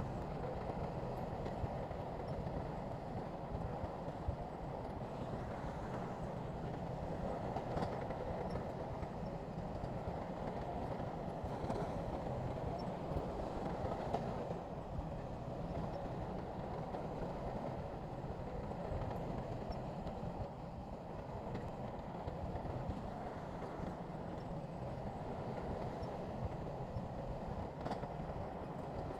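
Bulldozer's diesel engine running steadily, a continuous heavy rumble with a few faint clicks scattered through it.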